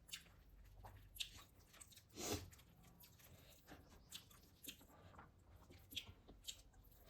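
A person chewing food close to the microphone, with a scatter of short, quiet mouth clicks and one louder, longer sound a little over two seconds in.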